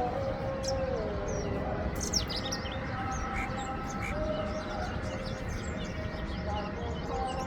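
Small birds chirping and twittering in quick short calls, over a steady background of held, humming tones that step in pitch now and then.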